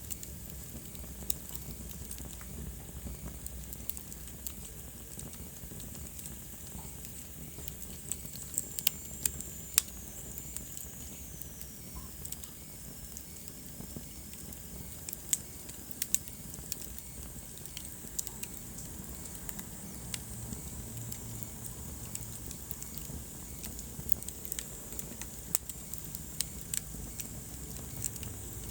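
Wood fire burning in a fireplace, crackling with irregular sharp pops over a low rumble and soft hiss. A faint high whistle slides downward about nine to twelve seconds in.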